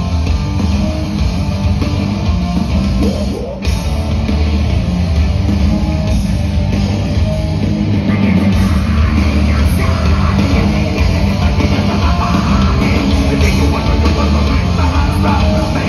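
Live heavy rock band playing loud, with drum kit and heavy low bass; the band drops out for a moment about three and a half seconds in, then comes back in.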